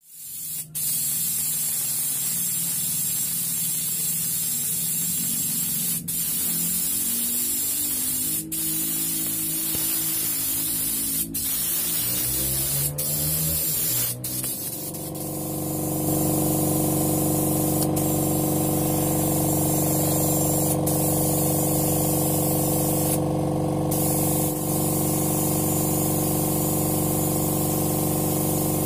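Airbrush hissing as it sprays paint, over the steady hum of its small air compressor. About halfway through the hum shifts upward and then holds steady, and there are a few faint clicks.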